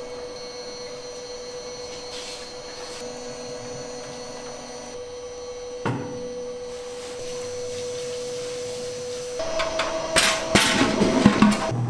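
A steady machine hum with a single sharp knock about six seconds in, then a burst of clattering knocks and clicks near the end.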